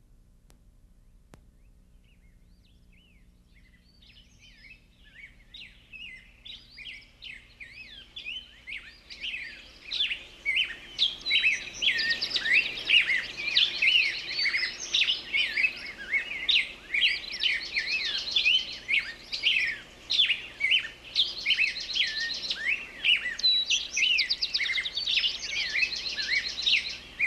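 Forest birds chirping and calling in a dense chorus of short, quick notes. The chorus fades in from near silence over the first ten seconds, and buzzy trills come back every few seconds.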